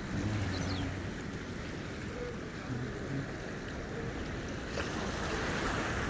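Sea waves washing and breaking among rocks along the shore, a steady rushing surf noise.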